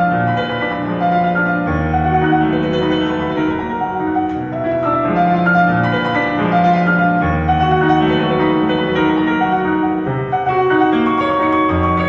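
Solo piano music: a slow piece of held chords with a melody over them and a few deep bass notes.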